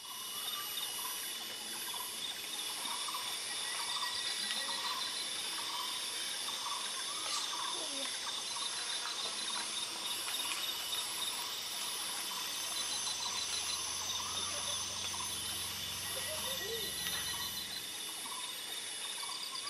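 Rainforest ambience: a steady chorus of insects with a regularly pulsing high trill, and birds calling with short repeated notes throughout.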